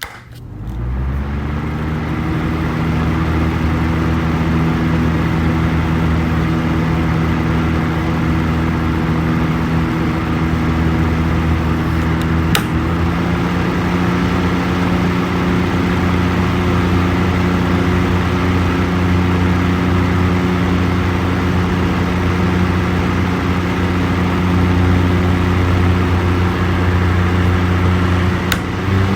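Electric fan switched on, its motor humming up to speed over the first second or two, then running with a steady whir. A click comes about twelve seconds in and another near the end, each followed by a slight change in the hum's pitch.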